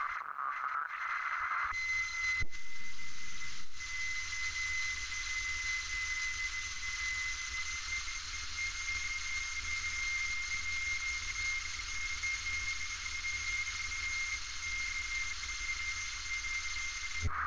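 Steady in-flight cabin noise of a light aircraft: an even hiss of engine and airflow with a steady high tone running through it. A click and a short louder stretch come about two to four seconds in.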